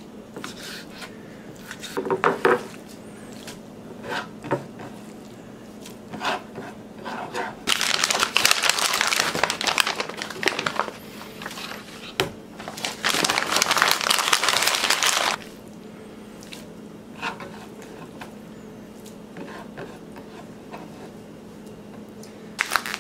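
Kitchen knife knocking on a wooden cutting board as venison steak is sliced, a few separate taps in the first seconds. Then two loud stretches of crinkling, a few seconds each, about a third of the way in and just past halfway, with a short burst near the end.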